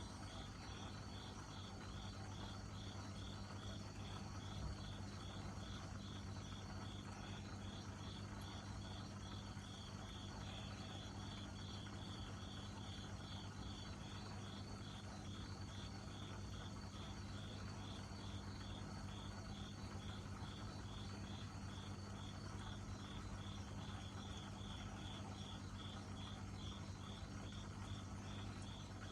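A cricket chirping steadily, short evenly spaced chirps repeating without a break, over a steady low hum.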